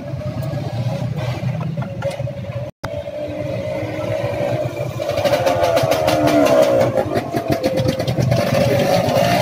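A motorcycle engine running steadily, cutting out for an instant a little under three seconds in. From about halfway it runs louder and rougher with a fast even ticking.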